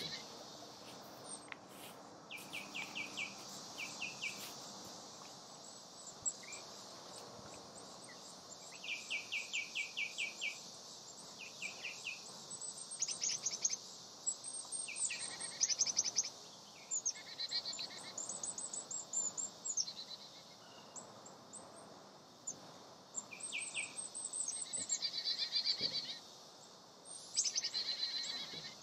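Wild birds calling in the trees: quick runs of repeated chirps and higher twittering calls at several pitches, coming and going over a faint steady hiss.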